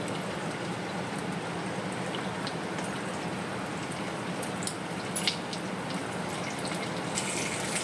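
Whole spices and shahjeera frying in hot oil in a kadai: a steady sizzling hiss, with a couple of small pops about five seconds in.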